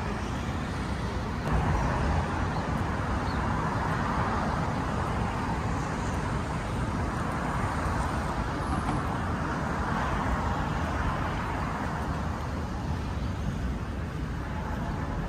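Road traffic: a steady rush of passing cars that swells and fades as vehicles go by.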